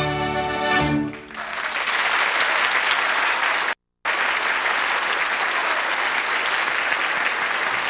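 An orchestra holds the final chord of a Hungarian dance tune, which ends about a second in. Studio audience applause follows and carries on steadily. Near the middle, a brief gap of total silence cuts through it.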